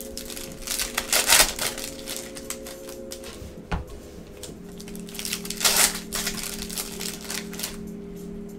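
Foil baseball card packs crinkling and cards being shuffled and set down by gloved hands, with loud rustles about a second in and again near six seconds, and a sharp tap in between.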